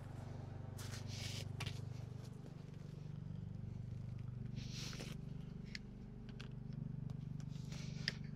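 Hands working half-inch black poly drip tubing and fittings on mulch, giving short scrapes and rustles twice and a few sharp clicks near the end, over a steady low hum.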